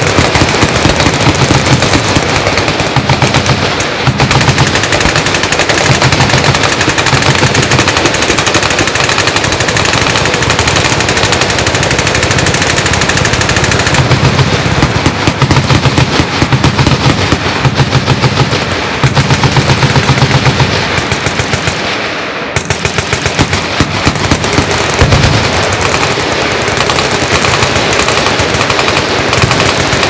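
Many machine guns on a firing line shooting full-auto at once: a continuous, overlapping din of automatic fire with no pauses. It thins out briefly about two-thirds of the way through, then picks up again.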